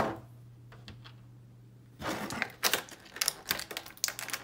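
Thin clear plastic packaging tray crinkling and crackling as it is handled. A sharp click comes at the start, then after about two seconds of near quiet a rapid, irregular run of crackles.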